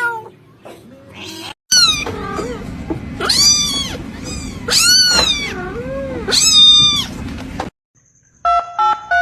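Kittens meowing: faint meows at first, then after a brief break a run of loud, high-pitched meows, each rising and falling, over a steady low hum. Near the end, a quick series of short electronic beeps begins.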